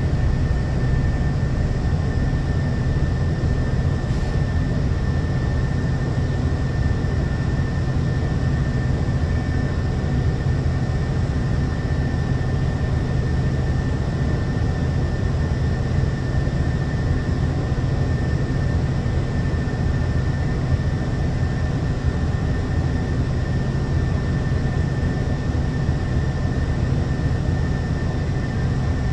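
Scania L94UB bus engine idling steadily, heard inside the passenger cabin as a constant low hum with a thin, steady high whine over it.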